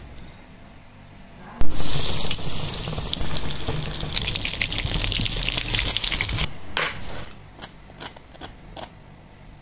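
Cornflake-coated ice cream ball deep-frying in hot oil: a loud crackling sizzle starts suddenly a bit over a second in and cuts off after about five seconds. Then a few short, crisp crunches of a knife cutting through the fried crust.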